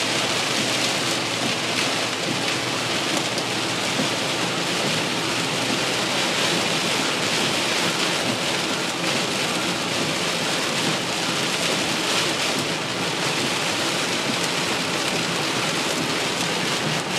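Heavy rain pouring onto a car's roof and windshield, heard from inside the car as a steady, dense hiss that doesn't let up.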